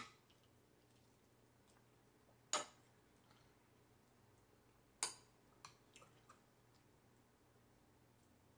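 Chopsticks clicking against a ceramic bowl and a griddle pan: three sharp clicks about two and a half seconds apart, then a few fainter ticks just after the third.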